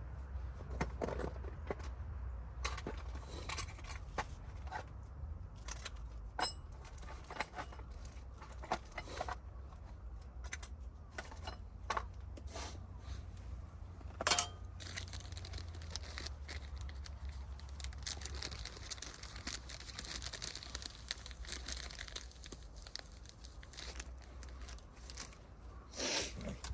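Crinkling and rustling handling sounds with many scattered sharp clicks and snaps, as tinder and kindling are handled for lighting a campfire, over a low steady rumble. A faint hiss comes in about halfway.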